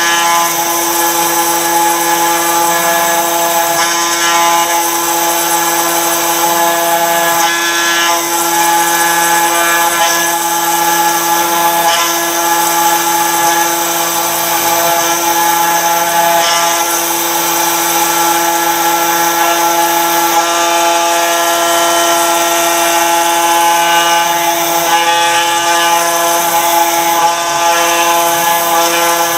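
Router spindle on a Torchmate RouterMate CNC table running at steady speed while its small bit grinds into stone: a steady whine with a grinding hiss over it.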